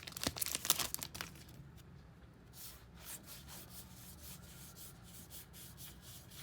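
A trading-card pack wrapper being torn open and crinkled, loudest in the first second, followed by fainter, irregular rustling as the cards are handled.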